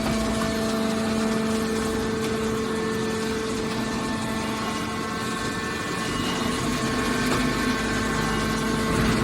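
Hydraulic scrap metal baler running: a steady hum from its electric motor and hydraulic pump.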